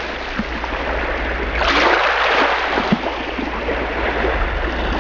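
Rushing water, a steady wash like waves or a stream, swelling about a second and a half in, with two soft low knocks.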